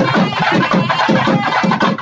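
Band music: double-headed barrel drums beaten with sticks in a quick, dense rhythm, with a wind instrument playing a wavering melody over them.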